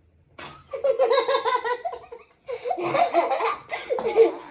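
Children laughing hard in two bouts of quick, pulsing laughter, the first starting about half a second in and the second about two and a half seconds in.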